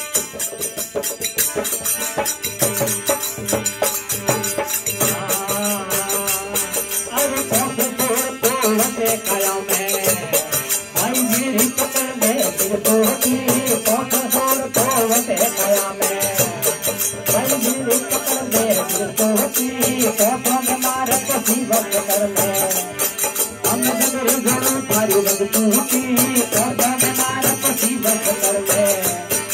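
Rajasthani devotional folk song (desi bhajan) played live: harmonium chords under fast, continuous strokes of manjira (small brass hand cymbals). A male voice comes in singing about five seconds in.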